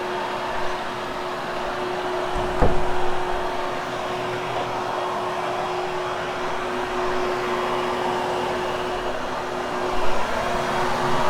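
Upright vacuum cleaner running steadily over carpet, its motor giving a constant hum. There is a thump about two and a half seconds in, and the sound swells briefly near the end.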